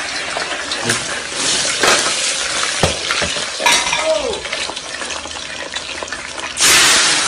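Food frying and sizzling in a pan while it is stirred, with scattered clicks of a utensil against the pan and a louder burst of hiss near the end.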